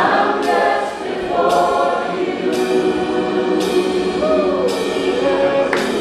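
Live gospel worship music: many voices singing sustained harmonies, with a single voice gliding above them, and a sharp hit about once a second.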